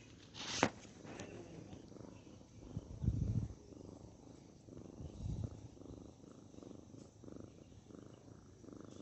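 A young tabby-and-white cat purring close to the microphone, a faint low rumble, with a louder low rumble about three seconds in and a short noise near the start.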